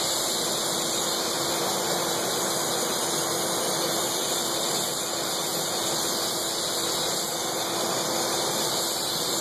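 Steady rushing hiss of a glassblower's hand torch flame preheating a ring seal on a glass tube, with a glass lathe spinning the tube and a steady low hum underneath.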